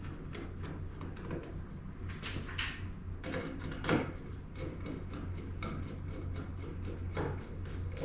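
Irregular small clicks and knocks of a screwdriver tightening the two screws on a service-entrance weatherhead cap, over a steady low hum.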